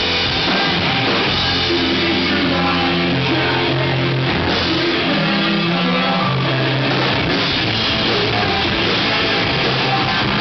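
A rock band playing live, with electric guitars, bass and drum kit. A harmonica played into the vocal microphone holds long notes over the band through much of the first two-thirds.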